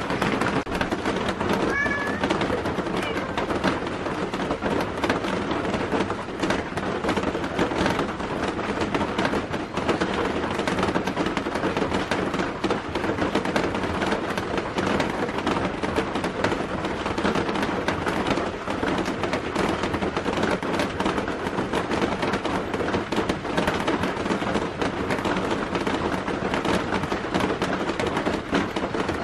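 A cat gives one short meow about two seconds in, over a steady crackling hiss that runs throughout.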